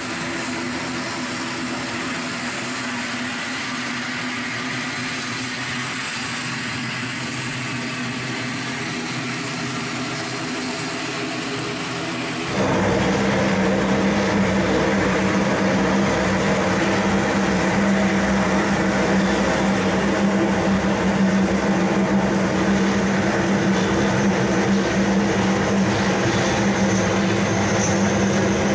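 ATR 72 twin turboprop engines and propellers running with a steady drone made of several even tones. About twelve seconds in it steps up louder, with a strong low hum.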